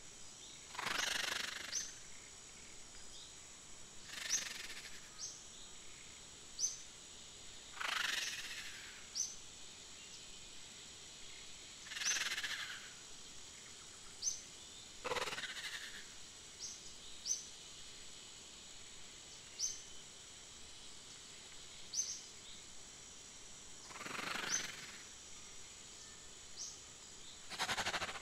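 Outdoor nature ambience: short, high bird chirps repeating about once a second over a steady high-pitched drone. Brief soft swishing rustles come every few seconds, about seven in all.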